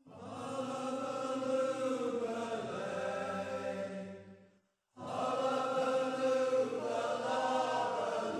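A men's shanty chorus singing together in harmony, in two phrases with a short break just before the middle.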